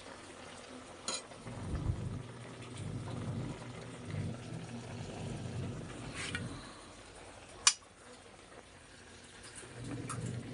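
Adobo meat boiling in liquid in a wide metal pan, a steady bubbling simmer. Three sharp clicks break in, about a second in, around six seconds and, loudest, near eight seconds.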